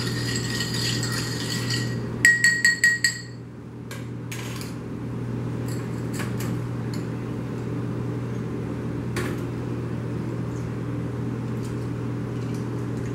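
Metal bar spoon stirring ice in a glass mixing glass, with clinking and a light glassy ringing; a little over two seconds in comes a quick run of about five sharp ringing clinks, the loudest sounds here. After that only a few scattered soft clicks and knocks of glassware over a steady low hum.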